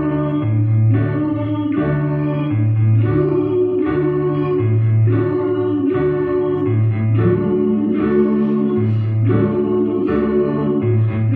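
Mixed choir of women's and men's voices singing in harmony, holding sustained chords over a low line that shifts about every second.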